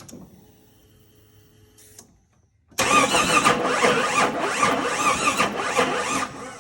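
A 1987 Jeep Comanche's starter cranks the engine for about four seconds, beginning about three seconds in, then cuts off without the engine catching. This is a no-start: the engine turns over but will not fire, and the crew suspect the fuel injectors.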